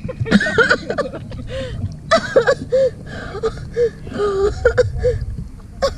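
A person's voice making many short, arching whimpering cries over a steady low rumble from the running jet ski.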